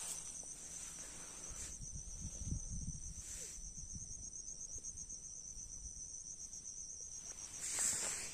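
Insects chirring in a continuous high-pitched, finely pulsing trill, with brief rustling and handling noise near the microphone.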